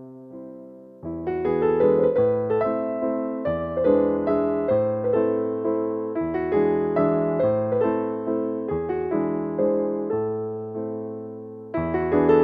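Background piano music: gentle chords, soft for the first second, then fuller, swelling again near the end.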